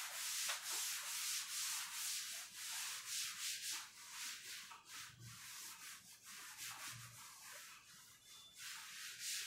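Cloth wiping chalk off a chalkboard, rubbing across the board in quick repeated strokes.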